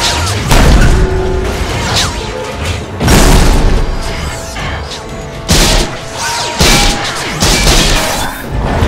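Dramatic orchestral action score with several heavy booming impacts and crashes from added sound effects for a fight between giant robots, the loudest about half a second in and about three seconds in.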